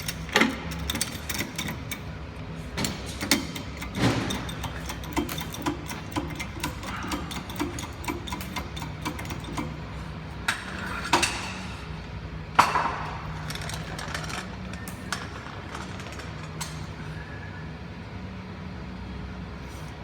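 Metal knocks and clanks while a Colchester Master 3250 lathe is lowered off its jacks. Several loud, ringing clangs stand out: one near the start, one about 4 seconds in, and two near the middle. Between about 2 and 10 seconds there is lighter knocking every half second or so, all over a steady low hum.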